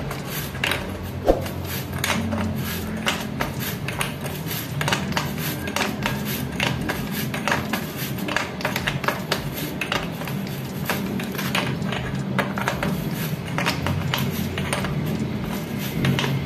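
Light metal clicks and clinks, irregular and several a second, from a bottom bracket tool turning a square-taper bottom bracket cup as it is screwed into the bicycle frame's bottom bracket shell and tightened.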